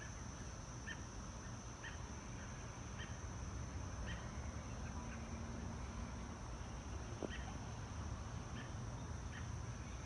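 Outdoor ambience: a steady high insect drone with short chirps about once a second, over a low rumble.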